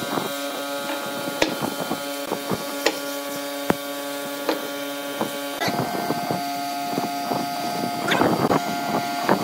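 Pine boards being set down and handled on a wooden workbench, with a few sharp wooden knocks and some scraping near the end. Underneath runs a steady electrical hum of several tones that shifts in pitch a little past halfway.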